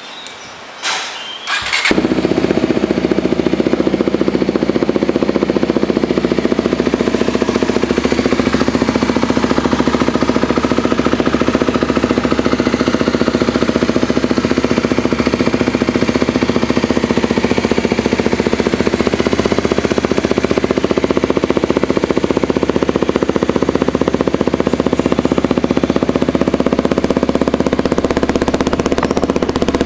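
Kawasaki Ninja 250SL's single-cylinder engine, fitted with an AHM Z1 stainless-steel and carbon full exhaust system, starting about two seconds in and then running steadily at an even level.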